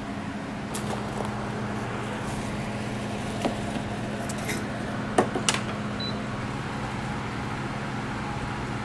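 Steady hum of kitchen equipment, with a few light clicks and clinks in the middle, the sharpest pair about five seconds in.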